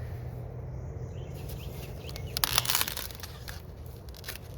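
Corn stalks and dry leaves rustling and crackling as an ear of corn is handled on the stalk, with a short crackling burst about two and a half seconds in.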